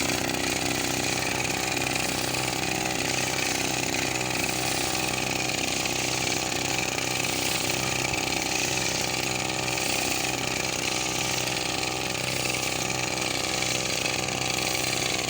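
Small engine of a motorized knapsack weed sprayer running steadily at constant speed.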